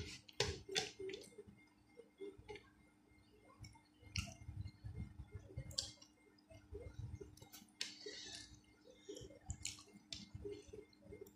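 Fingers mixing rice with dal on a plate, irregular wet squishes and sharp clicks, with chewing and lip smacks in between.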